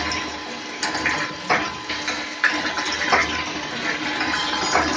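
Water churning and splashing inside a stainless steel brew kettle as its motorised agitator stirs it, with a thin stream of water pouring in. A few sharper splashes stand out now and then over the steady swirl, with a faint steady hum underneath.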